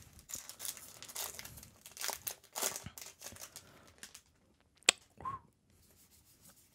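The foil wrapper of a Magic: The Gathering draft booster pack being torn open and crinkled by hand for about three seconds, followed by quieter handling of the cards and a single sharp click.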